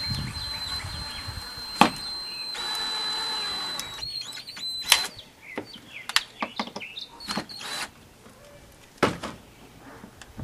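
Drill driving a screw into wood, its motor whining steadily and stopping about four seconds in. Then comes a run of sharp clicks and knocks.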